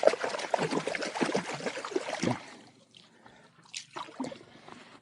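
Water splashing and trickling for about two and a half seconds, then a few separate small clicks.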